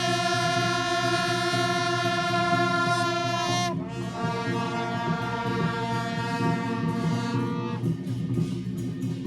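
Music: a brassy, reedy lead instrument holds long notes over a steady rhythmic backing. Its pitch slides down about four seconds in, and the note drops out near the end.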